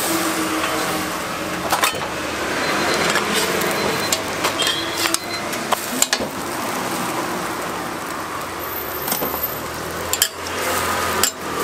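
Egg pancakes sizzling on a hot flat griddle, with a metal spatula and tongs scraping across the griddle plate. A few sharp metal taps are spread through it.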